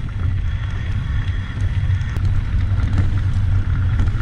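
Wind buffeting the microphone in a steady low rumble as a downhill mountain bike rolls over loose gravel and stone, with scattered small clicks and rattles from the tyres and bike.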